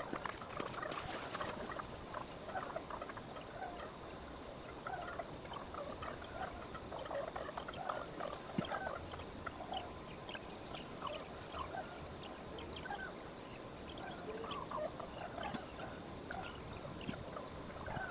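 Outdoor ambience of many birds calling: short chirps and calls, scattered and overlapping throughout, over a faint steady background noise.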